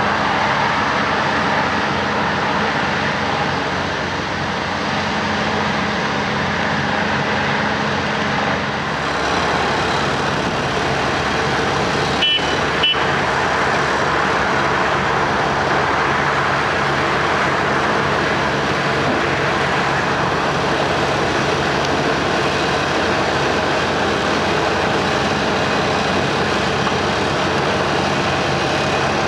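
Diesel engines of road-paving machinery running steadily. The sound changes about nine seconds in, and two short sharp sounds come shortly after.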